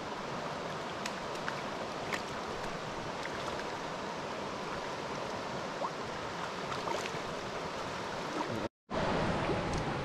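Shallow mountain trout stream rushing and burbling over rocks, with a few faint clicks over the water noise. The sound cuts out for an instant near the end and comes back slightly louder.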